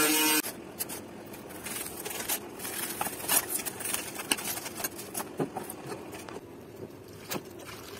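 A small electric angle grinder whines through a plastic bottle and cuts off about half a second in. Then a knife crunches and scrapes through a sheet of polystyrene foam, with scattered clicks and taps.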